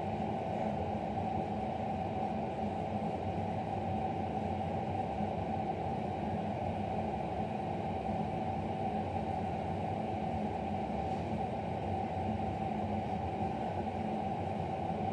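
Steady background hum, even and unchanging, with no distinct footfalls or knocks.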